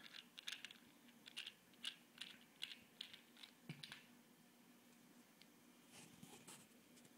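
Faint, light clicks and taps of small objects being handled on a tabletop, several a second, with a single soft knock about three and a half seconds in.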